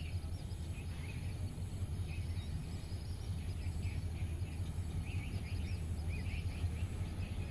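Small birds chirping in short repeated runs over a steady low rumble.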